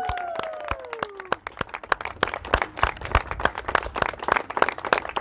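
Small crowd applauding with dense, uneven hand claps, with a long drawn-out cheer trailing off in the first second or so.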